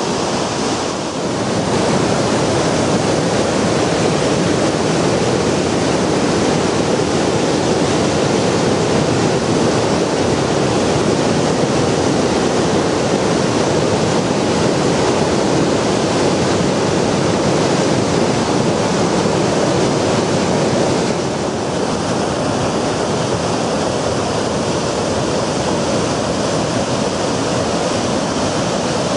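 Floodwater rushing in a steady, loud, even wash of noise that drops slightly about two-thirds of the way through.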